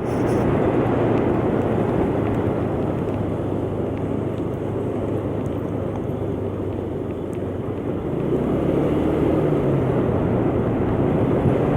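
125cc motor scooter riding along at steady speed, its engine running under a heavy rush of wind and road noise. The engine note rises a little about eight seconds in.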